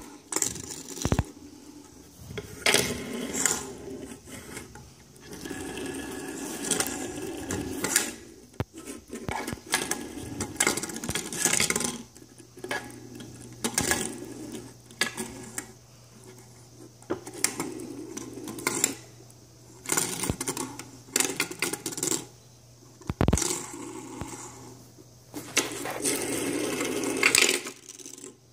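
Fidget spinners being spun and knocked together on a tabletop: stretches of rattling whirring broken by many sharp clacks.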